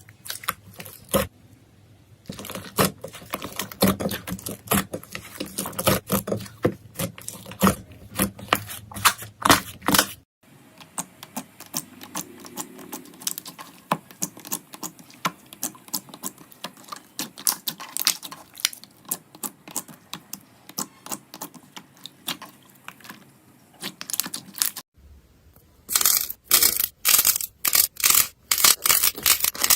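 Slime being squeezed, pressed and pulled by hand, giving rapid crackling and popping clicks. The sound changes abruptly twice: it turns quieter and finer about ten seconds in, then louder and scratchier about twenty-five seconds in.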